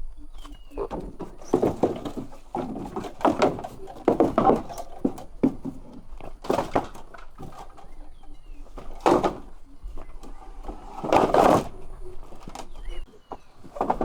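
Irregular knocks and clatter, a few louder thumps among them (one heavy cluster near the end), with a few faint bird chirps.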